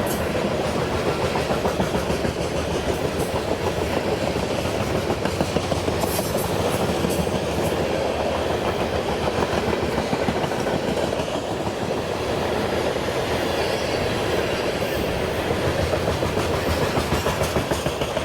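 Freight train cars rolling past, their steel wheels clattering rhythmically over the rail joints in a steady, continuous din.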